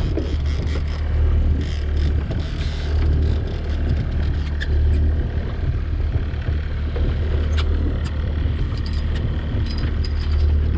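Boat engine running steadily at trolling speed, a low drone that swells and eases every second or two, with scattered small clicks and knocks of gear handling.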